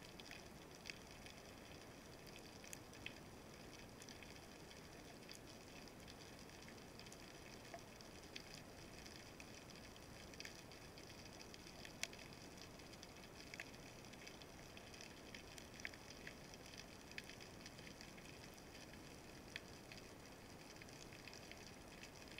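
Faint underwater ambience heard through a camera housing: a steady hiss with scattered sharp clicks and crackles every second or two.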